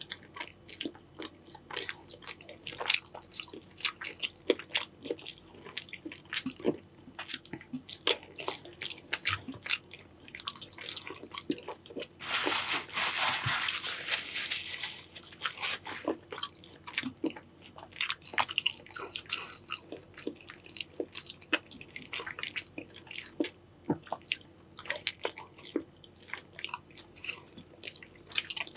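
Close-up eating sounds from a Cajun seafood boil: many quick crunches, bites and wet chewing, with a louder noisy stretch of about two and a half seconds a little before the middle.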